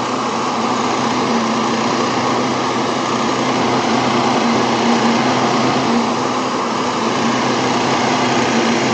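Electric heat gun running steadily: a constant rush of blown air over a low, even motor hum.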